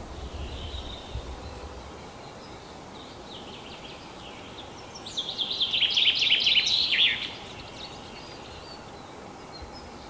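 Male common chaffinch (Fringilla coelebs) singing its spring song: one loud phrase of about two seconds, near the middle, made of fast repeated trilled notes that end in a lower flourish. Fainter song from other birds comes before it.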